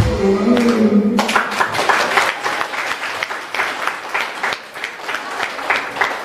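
The last held note of a children's song and its backing music ends about a second in, and the audience breaks into applause that gradually dies down.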